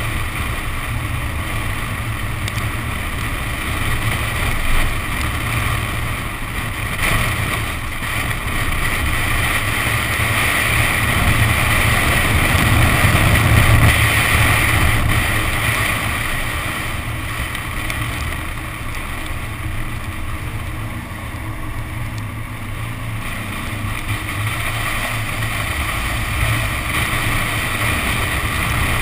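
Wind rushing over an action camera mounted on the outside of a Nissan 370Z driven hard on a wet track, with the car's engine and the hiss of water thrown up by the tyres under it. It gets louder about halfway through, then eases off.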